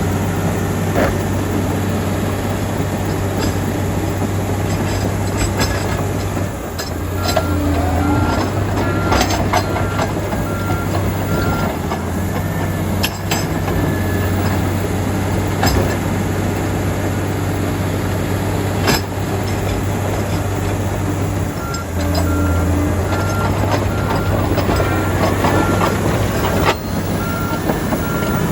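Komatsu D85EX crawler dozer working rock: a steady diesel engine hum under the clank and rattle of steel tracks and rock, with sharp knocks throughout. A repeating beep, typical of a reverse alarm, sounds from about seven to eleven seconds in and again from about 22 seconds, as the engine note shifts.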